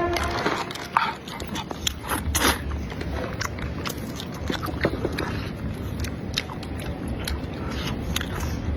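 Close-up eating sounds: a person biting and chewing food, with irregular wet mouth clicks and smacks.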